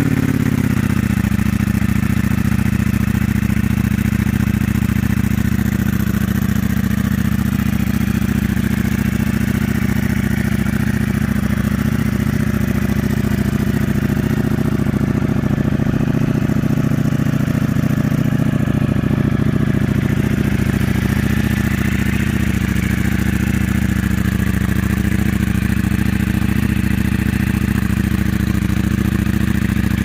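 Ducati Panigale V2's 955 cc V-twin with an Akrapovič exhaust idling just after a fresh start, left running to warm up. It settles within the first second to an even, steady idle.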